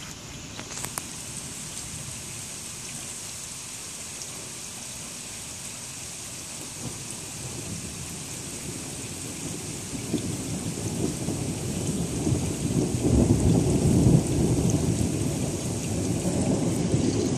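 Steady rain falling, with a low rolling rumble of thunder that builds from about halfway through and is loudest near the end.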